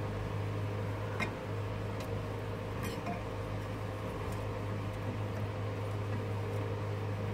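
A few faint clicks from a steering column's turn signal switch and its wiring being handled and worked loose, over a steady low hum.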